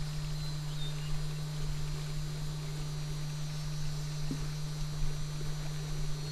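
A steady low hum under a faint, even hiss.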